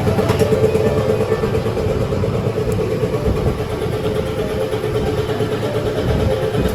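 A motor running steadily with a rough, low rumble.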